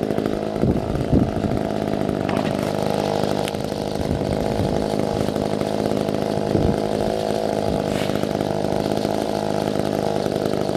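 Gas chainsaw running steadily at high speed while cutting into a log section to rough out table legs. There are a few sharp knocks as the chain bites the wood, and the sound cuts off suddenly at the end.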